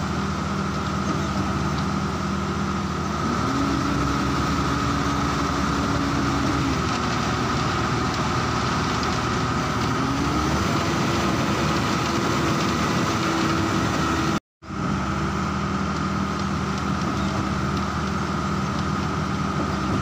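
An engine idling steadily, with a steady high whine above it. The sound cuts out completely for a moment about two-thirds of the way through.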